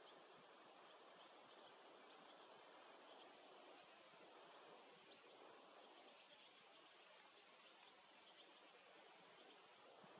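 Faint, short, high chirps of barn swallows, coming in scattered clusters and thickest about six to eight seconds in, over a steady outdoor hiss.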